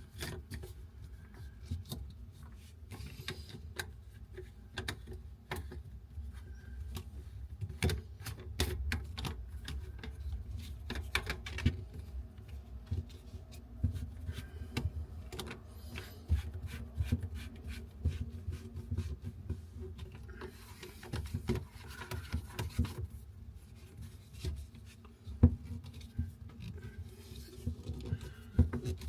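Irregular clicks, knocks and rubbing of plastic pipe fittings being handled and pushed and screwed together as a plastic basin trap is fitted under a sink, with a short stretch of scraping about two thirds of the way through and one sharp knock a few seconds later.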